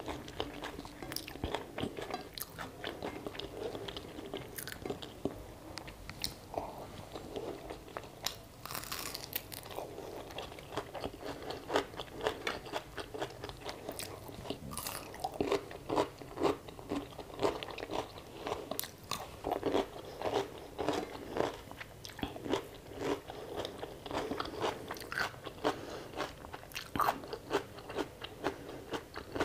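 Close-up eating: a person chewing and crunching mouthfuls of rice with fried potato and vegetables, full of irregular small wet mouth clicks and crackles.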